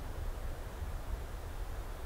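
Wind blowing through the forest: a steady, gusting low rumble with a soft hiss.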